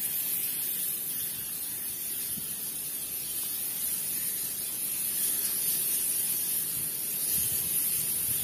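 Fire burning through a timber-framed tyre repair shop: a steady hiss of flames, with no pitched tone.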